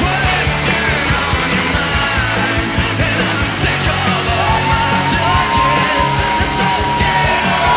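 Loud music with yelling voices over a steady beat, standing in as polka dance music. About four and a half seconds in, a long high note comes in and is held.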